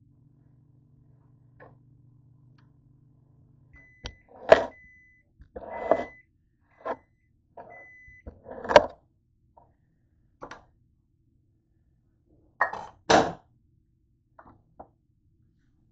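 Microwave oven humming as it runs, stopping about four seconds in, then beeping five times as its defrost cycle ends. Irregular knocks and thuds of a knife cutting boiled potatoes on a cutting board are mixed in.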